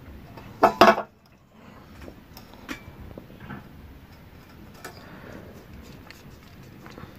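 A metal aerosol spray can being handled: a brief loud clatter just over half a second in, then a few faint taps and clicks.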